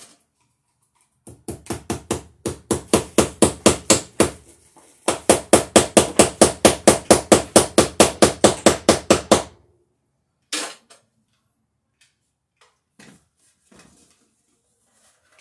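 A hammer striking in two quick runs of blows, about five a second, driving a fastener into wood overhead. The second run is louder and longer, after a short pause. A single knock follows, then a few faint taps.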